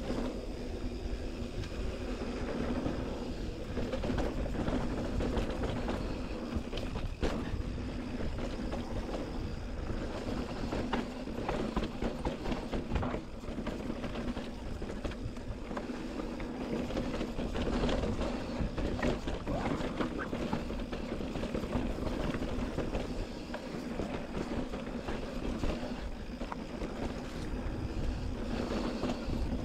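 Specialized Turbo Levo SL e-mountain bike ridden downhill over dry dirt singletrack, heard from a chest-mounted camera: steady tyre rumble with frequent clatter and rattle over rocks and bumps, a steady low hum, and wind on the microphone.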